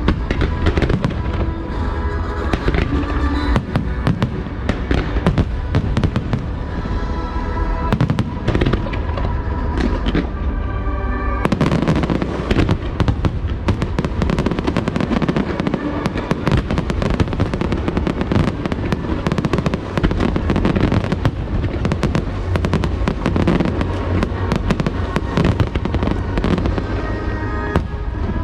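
A fireworks display with shells bursting and crackling in a dense, continuous barrage over loud show music. About eleven seconds in, the music changes and its tones thin out, while the bursts carry on.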